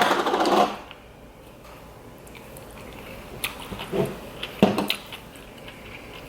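Close-up eating sounds: a brief rustling noise at the start, then a few soft bites and chewing clicks.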